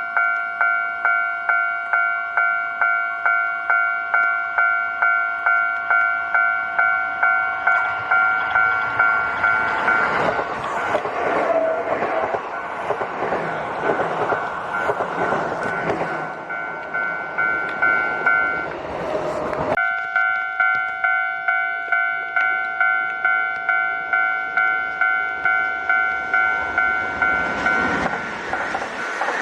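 Japanese level crossing bell ringing in a steady, rapid rhythm of about one and a half strokes a second. A Kintetsu Osaka Line electric train passes from about a quarter to two thirds of the way in, its running noise rising over the bell. The bell cuts out for a moment and starts again, and train noise builds once more near the end.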